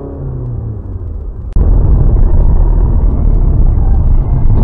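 Car driving, heard from a dashcam inside the cabin: steady low road and engine rumble. About a second and a half in, it cuts to a much louder, heavier low rumble of another car on the move.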